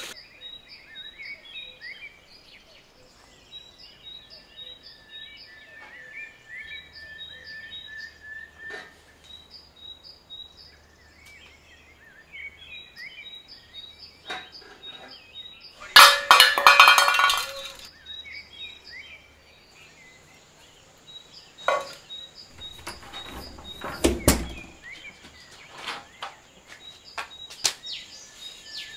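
Small birds chirping in a quick, repeating pattern, with scattered knocks and clinks of household things being handled. Just past the middle comes a loud rush of noise lasting about two seconds, and a few seconds later a heavy thunk.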